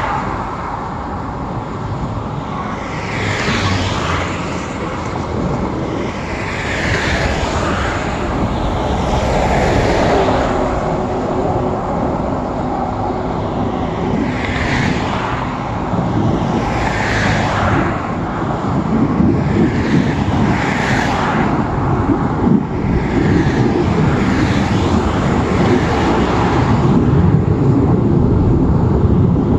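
Expressway traffic passing close by: cars going past one after another, each with a swell of tyre hiss that rises and fades, over a steady low rumble of traffic that grows louder in the second half.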